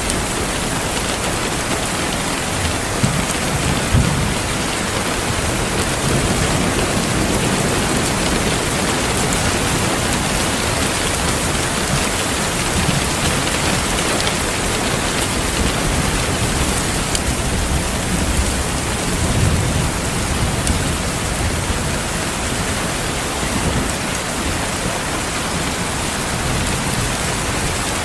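Steady heavy rain hissing, with low thunder rumbling now and then: about four seconds in, again a little later, and about two-thirds of the way through.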